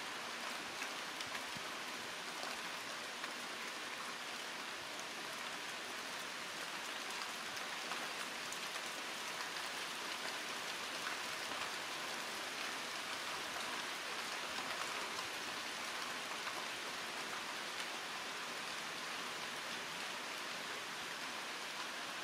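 Steady rain falling on tree leaves: an even hiss of many small drops pattering, with no change in strength.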